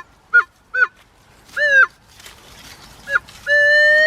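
Metal detector signal tones over a buried target as the small search coil is swept: several short chirps that bend downward in pitch, one of them longer, then a steady held tone near the end. The detectorist takes the signal for a possible silver find.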